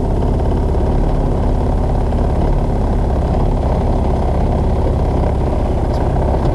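Linhai Big Horn 400 UTV engine idling steadily while it warms up.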